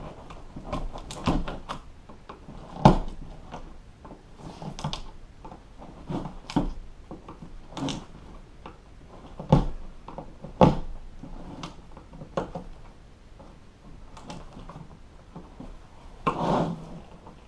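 Hand tool prying staples out of a plastic boat-seat base: irregular clicks, knocks and scrapes, with a longer scrape near the end.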